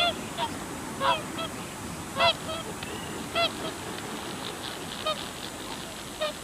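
A flock of geese honking: short calls, sometimes two in quick succession, coming every half second to a second, some loud and close and others fainter.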